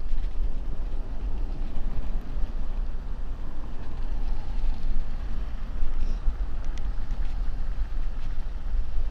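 Wind buffeting the microphone of a camera on a moving bicycle, a steady deep rumble, mixed with the hiss of the tyres rolling over packed snow.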